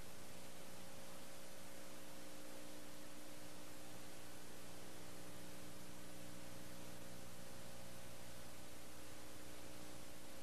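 Steady hiss with a low electrical hum and no other sound: the noise floor of a soundless old video transfer.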